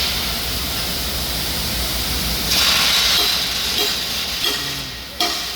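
Steady loud hissing noise with a low rumble beneath it, swelling about halfway through and easing off near the end.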